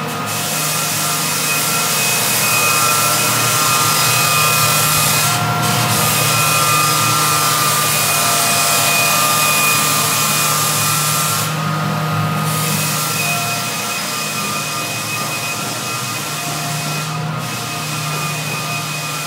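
Drum floor sander running over a walnut plank floor: a steady motor hum with a high whine and the hiss of the abrasive on the wood. The hiss dips briefly about every five to six seconds.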